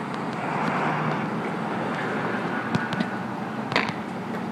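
A car running steadily, a wash of engine and tyre noise that swells about a second in, with a couple of faint clicks later on.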